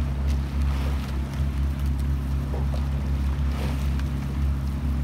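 Outboard motor of a coaching launch running steadily, a constant low hum, with water noise and wind on the microphone.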